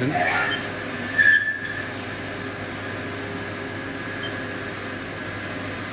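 CNC mill drilling through a billet intake-runner block with a short-flute 8 mm drill under flood coolant: a steady hiss of spindle and coolant with a thin whistle from the cut, briefly louder about a second in. The drill is cutting cleanly.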